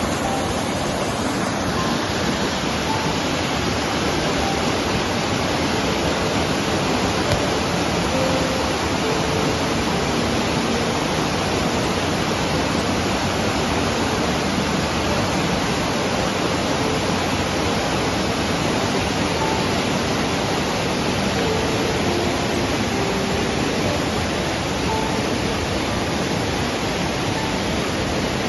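Monsoon-swollen rocky stream rushing over boulders: a steady, loud rush of whitewater that does not let up.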